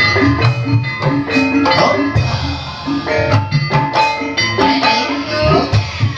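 Gamelan music of the kind played for ebeg dancing: hand drums under struck keyed percussion repeating a short, steady pattern of ringing notes.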